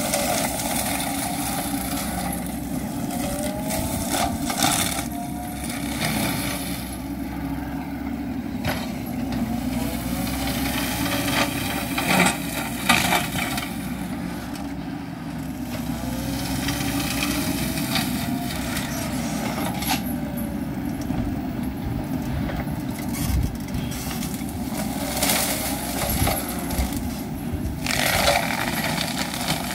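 Wacker Neuson ET65 excavator's diesel engine running steadily under load while its hydraulic forestry mulcher spins into brush. Repeated crackling and snapping come through as the mulcher shreds shrubs and branches, loudest at about twelve seconds in and again near the end, with a whine that rises in pitch several times.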